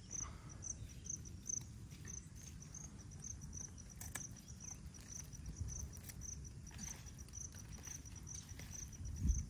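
A cricket chirping steadily, short high chirps about three a second, over a low rumble, with a few faint clicks and a low thump near the end.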